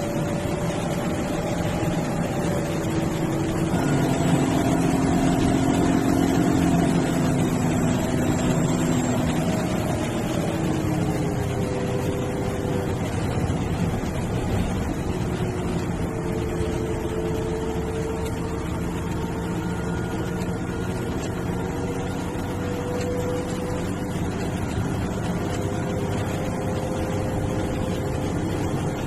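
MSRTC bus's diesel engine running on the road with constant road noise. The engine note rises and grows louder about four seconds in, then drops and settles into a steadier note after about eleven seconds.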